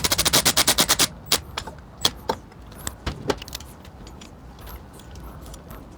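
Ratchet wrench clicking rapidly and evenly, about a dozen clicks a second, for the first second, followed by a few scattered metallic clicks and taps of tools being handled.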